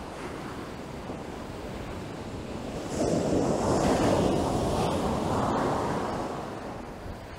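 Surf washing on a beach: a steady rush of waves, with a louder wave breaking about three seconds in and washing up before easing away.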